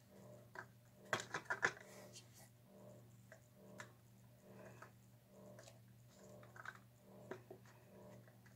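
Light clicks and taps of a painted board and a paint cup being handled and shifted on a wire rack, with a cluster of sharper clicks about a second in, over a steady low hum.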